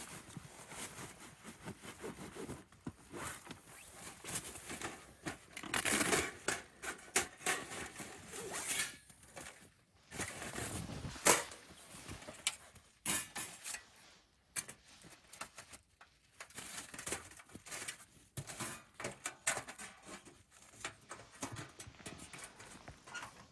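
Camping gear being handled on a tent's groundsheet: nylon fabric and a backpack rustling and shifting, with scattered light knocks and clicks as items, including a wooden board, are set down. One sharp knock stands out about eleven seconds in.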